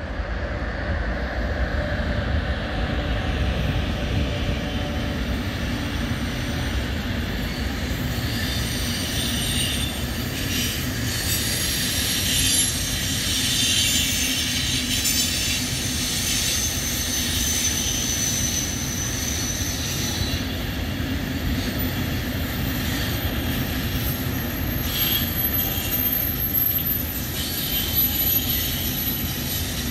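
Intermodal freight train carrying lorry trailers rolling past with a steady rumble. High-pitched wheel squeals come and go from about eight seconds in.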